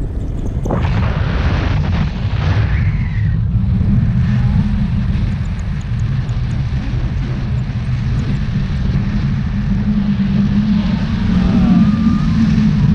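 Airflow buffeting an action camera's microphone in flight under a tandem paraglider: a loud, steady low rumble, with a gust of hiss about a second in.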